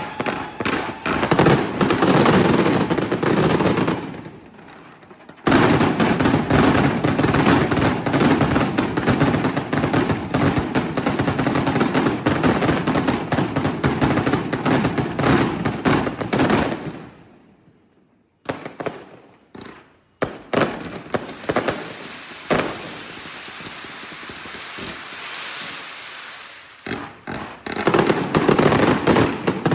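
Firecrackers and fireworks fired from a flatbed truck in long, rapid barrages of bangs. The barrage drops away briefly about four seconds in, and goes nearly quiet just past halfway. It resumes with scattered bangs and a lighter crackle, then builds back to a full barrage near the end.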